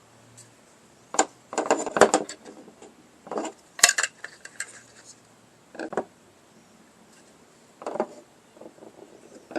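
Metal parts and hardware clinking and clattering as they are handled and set down: about half a dozen separate sharp clatters and knocks, with quiet between them.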